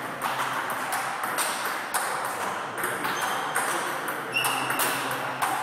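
Table tennis balls clicking off bats and tables in rallies: quick, irregular ticks a few times a second. A short high squeak sounds about four and a half seconds in.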